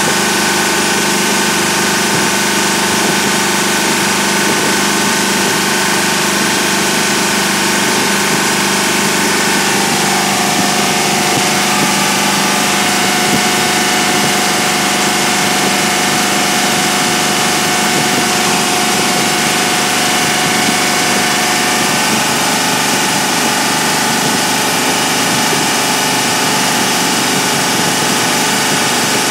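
Newly built Ford 351 V8, carbureted, running on an engine dyno during its break-in, holding a steady speed. Its pitch dips slightly about ten seconds in.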